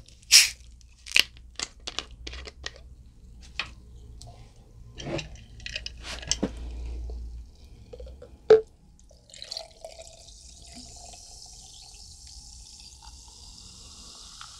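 Dark fizzy soft drink poured from a bottle over ice cubes in a glass: a steady fizzing hiss with a pouring tone that rises in pitch as the glass fills, starting about nine seconds in. Before it, a series of sharp clicks and taps, the loudest just before the pour.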